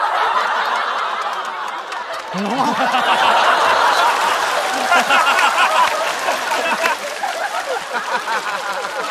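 A studio audience laughing, many voices at once, swelling louder about two and a half seconds in.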